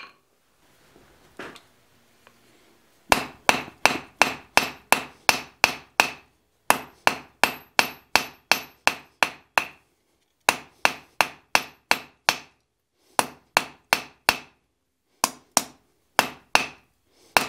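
Hand hammer striking red-hot steel on an anvil, drawing out the transition of a forged marking knife's taper. After a nearly quiet start with one faint knock, the blows come about four a second in runs of a few seconds with short pauses, each one ringing.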